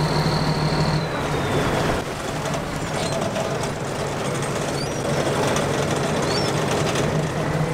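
A small fishing boat's engine running steadily: a constant low pitch under a rushing noise.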